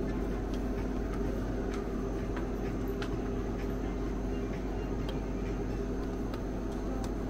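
Steady low hum of supermarket refrigeration, several low tones held steady, with a few faint clicks.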